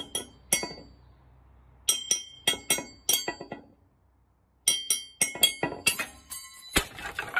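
Knife blade striking a glass beer bottle: clusters of sharp clinks, each ringing briefly at the bottle's pitch, with a heavier knock near the end.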